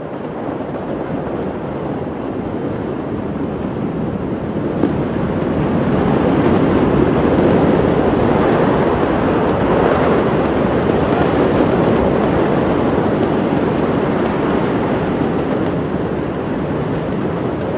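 A steady rushing noise that swells louder about six seconds in and then holds, with faint crackles over it.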